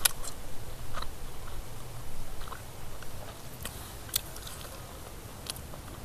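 A person biting into and chewing pieces of spiced grilled chicken, most busily in the first half and easing off after that, with a few sharp clicks.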